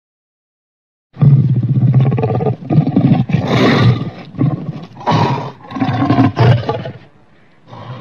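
Monster roar sound effect for Griffon, the winged-lion kaiju, built from lion-like roars: after about a second of silence, a rough roar comes in several pulsing bursts, dying down shortly before a new one starts near the end.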